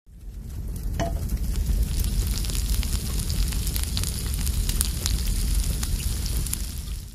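A red liquid sizzling and crackling steadily as it heats in a small steel pan on a miniature stove, with a sharper click about a second in.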